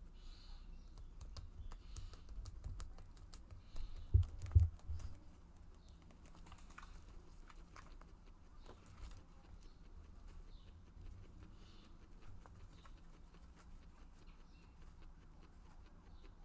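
Guinea pigs chewing and pulling at corn leaves: a scattered run of small crisp clicks and leaf rustles, with a few louder low thumps about four seconds in.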